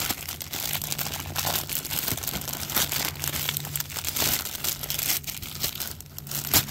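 Clear plastic polybag crinkling and rustling in the hands as it is worked open, with one sharp crackle near the end.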